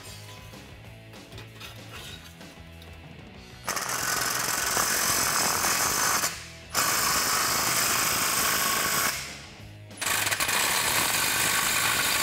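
Milwaukee Fuel cordless impact wrench hammering in three runs of about two and a half seconds each, starting about four seconds in, tightening the clamps of the exhaust tips onto the tailpipes.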